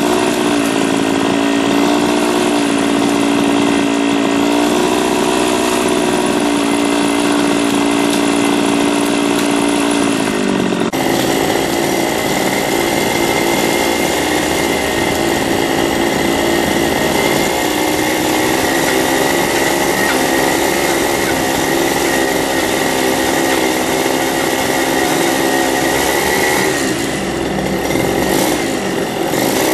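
Small petrol bike engine running loud and steady at high revs on test. Its tone changes abruptly about a third of the way through, and it dips briefly near the end.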